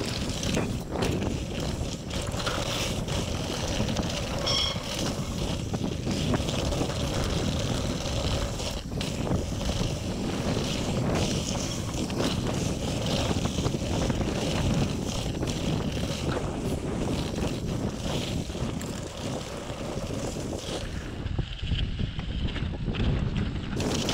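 2018 Trek Remedy enduro mountain bike riding fast down a dirt and rock trail: steady tyre roar with frequent knocks and rattles from the bike over bumps, and wind buffeting the microphone.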